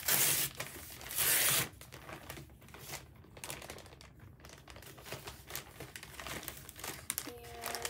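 A mailing package torn open by hand: two loud rips, one right at the start and one about a second in, then the packaging rustling and crinkling as the contents are pulled out.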